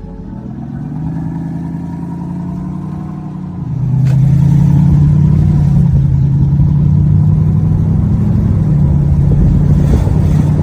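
Synthetic V8 exhaust note played through an iXsound active exhaust loudspeaker system fitted to a 2022 Kia Mohave diesel SUV. It is a steady low rumble that becomes much louder about four seconds in and then holds at that level.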